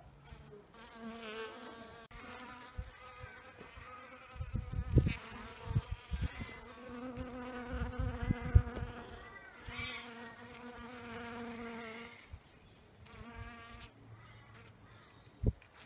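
European honeybees buzzing around a magnolia flower, a steady wingbeat hum that comes and goes as the bees move, dying away about twelve seconds in apart from a brief return. Low thumps break in several times between about four and nine seconds in and are the loudest sounds.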